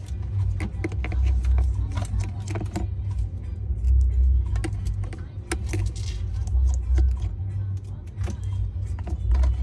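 Many small, sharp clicks and taps, irregularly spaced, over a steady low rumble that swells and fades.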